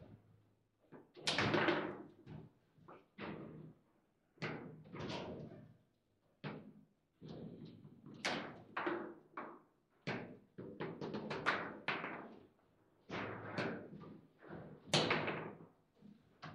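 Table football in play: irregular hard knocks and slams as the ball is struck by the player figures and hits the table walls and the rods bang in their bearings, loudest about a second and a half in and again near the end.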